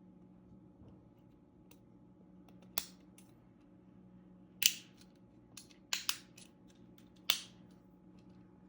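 Sharp hard clicks and snaps, about five over a few seconds, one of them a quick double, as the plastic parts of a GE dishwasher door latch are worked and pressed back into place by hand. A steady low hum runs underneath.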